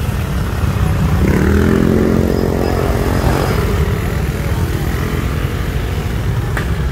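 Motorcycle engine passing on the road, its pitch rising about a second in and fading away after a couple of seconds, over a steady low rumble of traffic.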